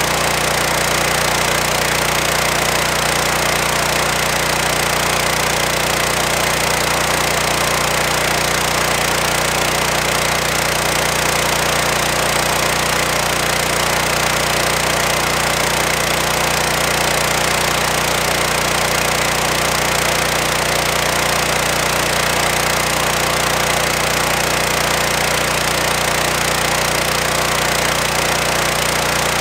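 Petrol pressure washer's Loncin G420 single-cylinder engine running steadily under load, with the dense hiss of 200-bar water spinning under an 18-inch Whirlaway rotary surface cleaner as it scrubs the court.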